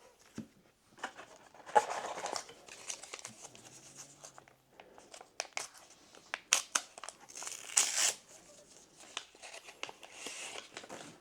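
A trading-card booster pack wrapper being torn open and crinkled: a few ripping, rustling bursts with sharp clicks, the loudest about two seconds in and around eight seconds in.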